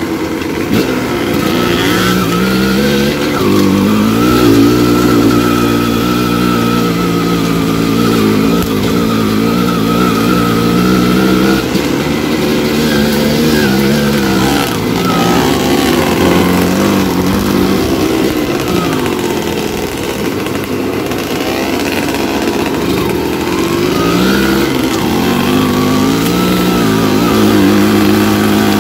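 Dirt bike engine running under way on a trail, its pitch rising and falling again and again as the throttle is opened and closed.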